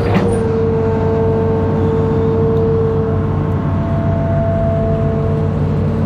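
Amphibious excavator's diesel engine running steadily, with steady whining tones over the low drone and a single sharp knock just after the start.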